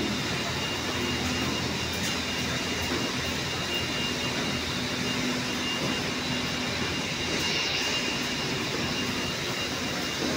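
Battery factory machinery running: a steady mechanical din with a constant low hum and a thin high whine over it.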